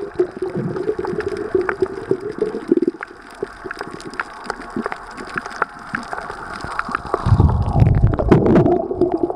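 Underwater sound picked up by a submerged camera: a steady wash of water noise with many sharp clicks scattered through it. About seven seconds in, a heavier low rumbling surge of water moving past the camera takes over and is the loudest part.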